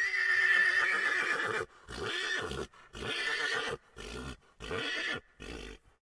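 Horse whinnying: one long, loud call, then five shorter, weaker pulses that fade away.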